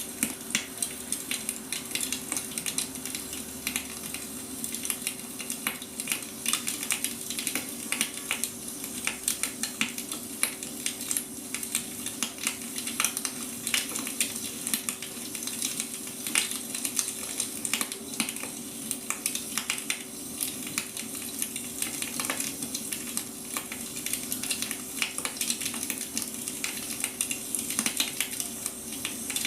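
Burning firewood crackling and popping continuously, with many small irregular snaps, over a steady low hum.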